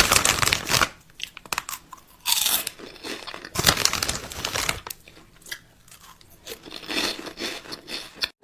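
Irregular crunching, tearing and crinkling in short bursts with pauses between them, like crinkly material being torn and crushed.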